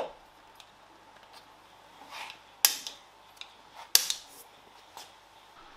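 Sharp clicks and snaps of a car's distributor cap and parts being fitted back onto the distributor by hand. There are three loud snaps, one at the start, one about two and a half seconds in and one about four seconds in, with lighter clicks between them.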